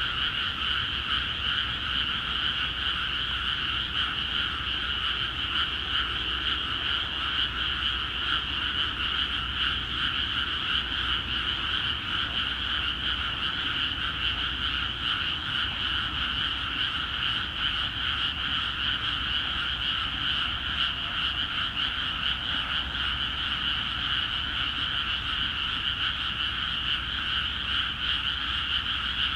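A dense chorus of many frogs croaking in freshly flooded rice paddies, a continuous, unbroken din with no let-up.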